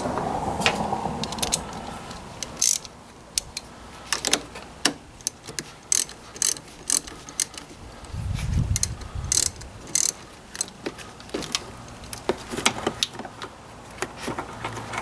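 Hand socket ratchet clicking in short, uneven strokes as a nut is loosened under the hood, with a brief low thud about eight seconds in.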